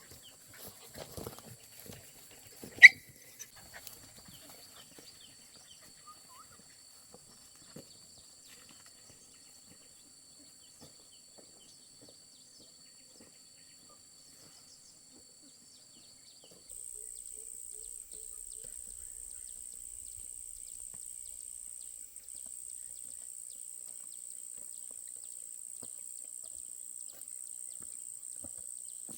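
Steady high-pitched insect drone that gives way, a little past halfway, to a higher and louder one. A single short, sharp animal cry sounds about three seconds in.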